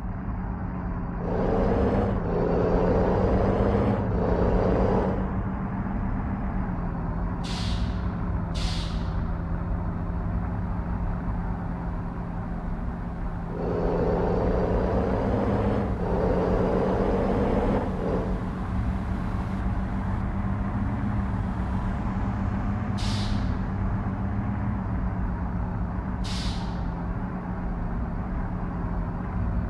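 Heavy truck's diesel engine running, pulling harder twice with the engine note rising, with short sharp hisses of air from its air brakes several times.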